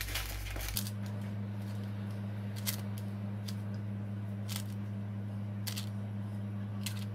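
Butter paper rustling as it is smoothed into a plastic container, then a few light separate taps as breaded nuggets are set down on it, over a steady low hum that starts about a second in.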